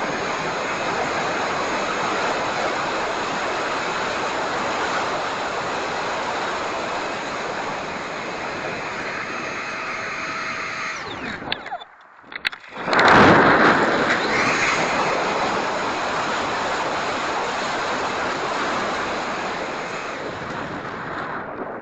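Electric ducted-fan RC jet flying, a steady rushing whoosh with a thin high whine that shifts in pitch. The sound cuts out briefly about halfway through and returns louder.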